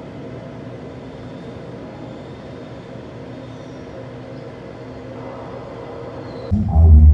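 Steady low rumble of a large, crowded hall. About six and a half seconds in, loud bass-heavy music cuts in abruptly.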